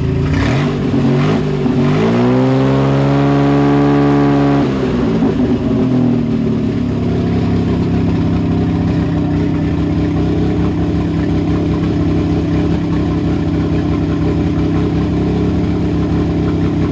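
Rebuilt Volvo Penta 4.3 L GL V6 marine engine revved by hand at the throttle. The pitch rises at about two seconds, is held up for a few seconds, then drops back to a steady idle for the rest of the time.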